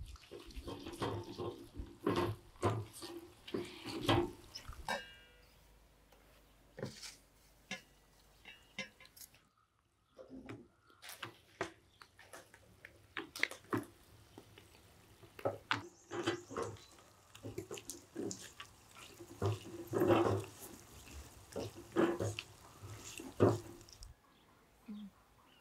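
A silicone spatula stirring and scraping a thick, sticky nut-and-syrup mixture in a pot, making repeated wet squelching scrapes and clicks. There is a brief break about ten seconds in, and the sounds stop shortly before the end.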